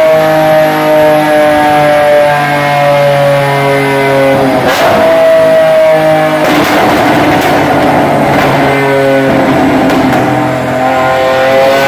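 Lamborghini Aventador LP700-4's V12 running loud through a valved Fi Exhaust catback, its pitch slowly sinking. About four and a half seconds in it turns rough, with a stretch of crackles and pops from the exhaust, and the revs climb again near the end.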